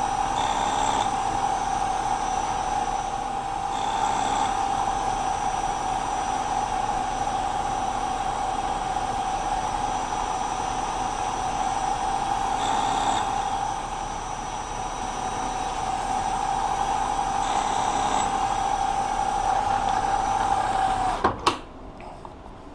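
Milling machine spindle running with a steady whine as a slot drill cuts spoke cutouts in a hand wheel on a rotary table. Short bursts of higher, harsher cutting noise come and go several times. Near the end the spindle is switched off, and the whine sags slightly and stops, followed by a couple of clicks.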